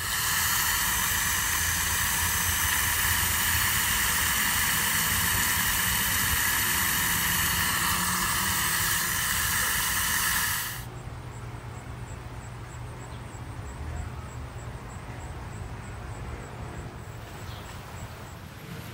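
Water spraying from a hose nozzle onto soil and plant stems: a loud, steady hiss that cuts off suddenly about eleven seconds in, leaving quieter outdoor background.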